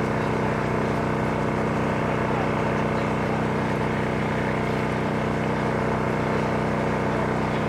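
A motor running steadily, its drone holding one even pitch without rising or falling.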